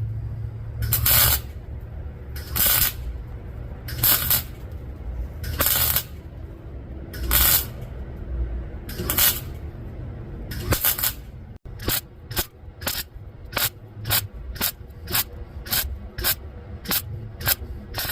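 Electric welder laying short tack and stitch welds on steel exhaust tubing: crackling, hissing bursts about every second and a half, then after a cut a quicker run of short bursts, about two a second.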